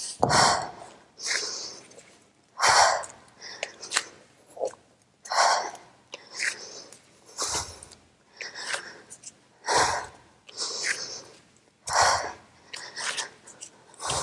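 A woman breathing hard through a plank exercise with a dumbbell, short exhalations about once a second. Every two or three seconds a dull thud as the dumbbell is set down on the exercise mat.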